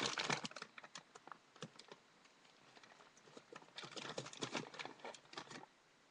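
Plastic bag of hamster food crinkling and rustling as it is handled, in two spells of crackling: one at the start and another about four seconds in.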